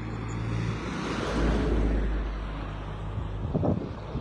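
A motor vehicle passing by over a low engine hum, its noise swelling to a peak about halfway through and then fading.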